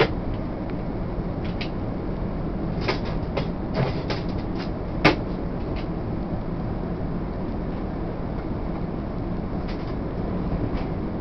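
Steady in-flight cabin noise of an Airbus A380 airliner: the even rush of airflow and engines heard from the economy cabin. A few short clicks and knocks come a few seconds in, the sharpest about five seconds in.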